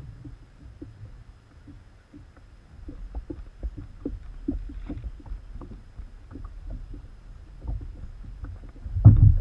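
Light knocks and rattles from the camera mount and hull of a Feelfree Lure 11.5 fishing kayak as the standing angler shifts his weight, over a low rumble, with one loud thump about nine seconds in.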